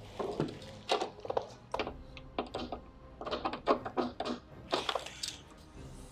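Irregular light clicks and knocks of hands and tools handling parts inside a car door, with its window glass and regulator exposed.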